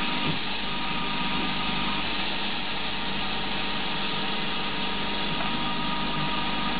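Hercus PC200 CNC lathe spindle running at speed, turning free-cutting steel, under the steady hiss of a Noga spray-mist coolant unit.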